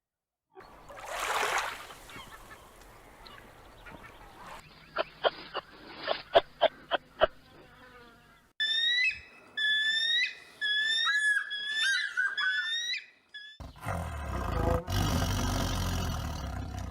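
A string of different animal calls: a breathy blow, then a rapid series of sharp clicks, then repeated short rising chirping calls, and near the end a loud, rough, growling roar.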